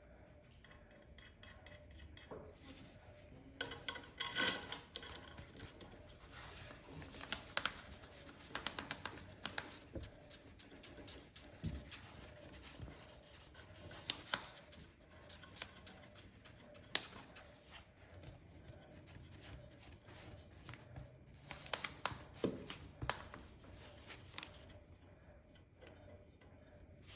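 Hand tools and metal engine parts being worked: a long run of quick, irregular clicks and scrapes with a few sharper ticks, stopping near the end.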